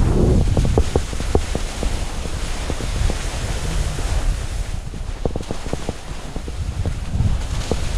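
Wind rushing over the microphone as skis carve fast turns down spring snow, the skis scraping over the surface, with a clatter of short sharp clicks that comes thickest near the start and again about five seconds in.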